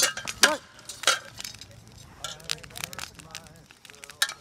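Steel swords and bucklers clashing in sparring: a run of sharp metallic clinks, several close together in the first second and more about two seconds in and near the end. Onlookers' voices are heard behind them.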